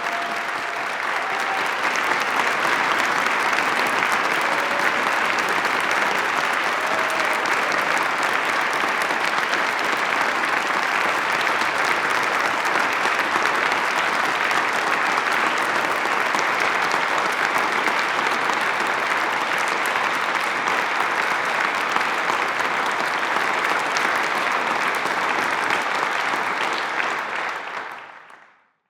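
Large congregation applauding steadily in a cathedral, then fading out near the end.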